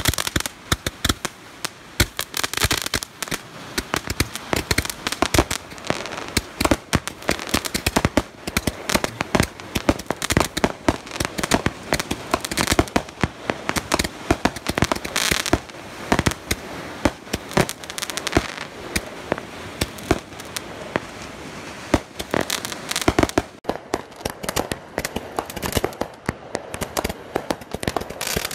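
Consumer ground fireworks firing a rapid, unbroken string of sharp cracks and pops, many a second, from a multi-tube cake throwing up sparks and comets.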